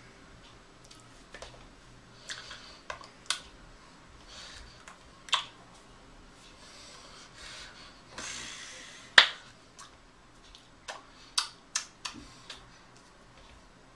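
Hands slapping, tapping and rubbing against each other and against the chest while signing: scattered sharp slaps and short brushing sounds, the loudest slap about nine seconds in.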